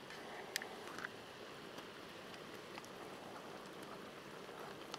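Faint sizzling and bubbling of a cream and mushroom sauce simmering in a frying pan on a grill's burner, with two light clicks about half a second and a second in, and stirring with a spoon.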